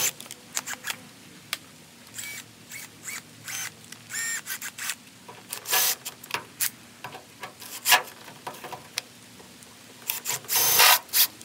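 Irregular clicks, taps and rubbing from tools and hood-latch parts being handled on the Jeep, with a few short squeaks, over a faint patter of rain.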